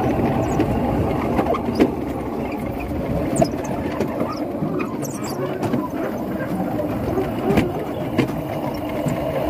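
Sled running down an alpine slide's trough: a steady rolling and scraping noise with a few sharp clicks and knocks.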